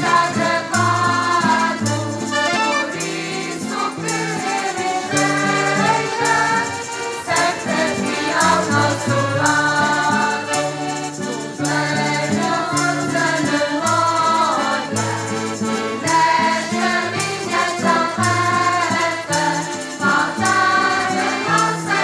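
A mixed group of men and women singing a traditional Azorean folk song together, accompanied by two piano accordions holding chords and a strummed acoustic guitar keeping a steady rhythm.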